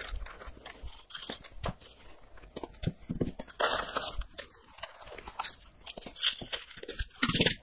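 Dry uncooked rice being scooped from a plastic tub with a measuring cup and poured into a sock stretched over a plastic cup: irregular rustling of grains, with a louder burst near the end.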